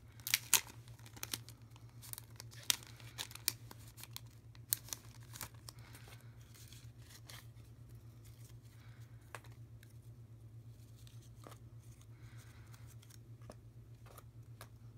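Clear plastic cellophane bag crinkling and crackling as a stack of paper die cuts is pulled out, loudest just under a second in, then sparser light taps and rustles as the cardstock pieces are set down one by one. A steady low hum runs underneath.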